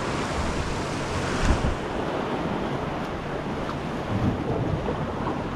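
Ocean waves washing against jetty rocks, a steady surf wash with wind buffeting the microphone and a brief low thump about a second and a half in.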